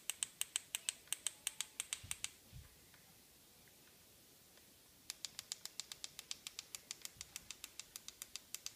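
Rapid clicking of the push buttons on an LED ring light's inline USB remote, about six presses a second for two seconds, then after a pause of nearly three seconds another run lasting about three and a half seconds, stepping the light's brightness.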